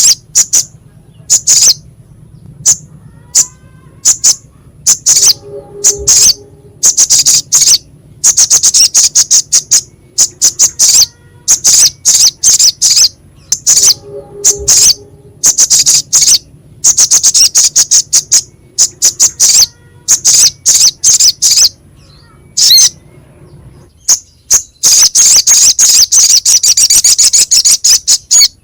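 Sogok ontong, a sunbird, singing a harsh, sharp song: rapid high-pitched chips in repeated bursts that run into long fast trills.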